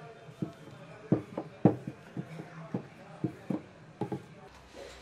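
Wooden rolling pin knocking and rolling on a board as dough is rolled out thin: an irregular string of short knocks, the loudest a little over a second in.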